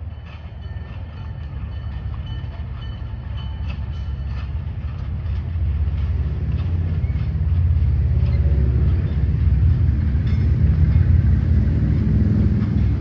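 Diesel locomotive hauling a passenger train, its engine rumble growing steadily louder as the train approaches and comes close.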